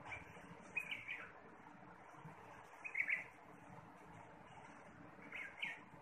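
A bulbul chirping in three short bursts about two seconds apart, over a steady background hiss.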